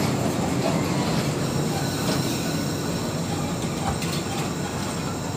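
Passenger carriages of the Eastern & Oriental Express rolling past along the platform: a steady rumble of wheels on the rails, with faint high wheel squeal and a few clicks over rail joints.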